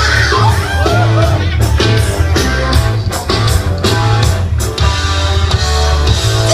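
Rock music: electric guitar over heavy bass and steady drum hits, with bending guitar notes near the start.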